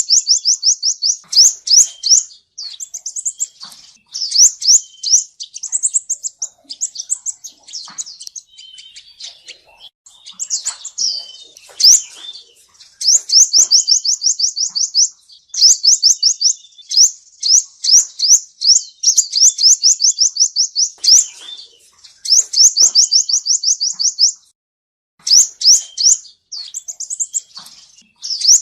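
Male sunbird (the 'seven-colour' sunbird) singing, a recording used as a trapping lure: fast trills of rapidly repeated high, thin notes in phrases of one to two seconds, with short breaks and a pause of about a second near the end.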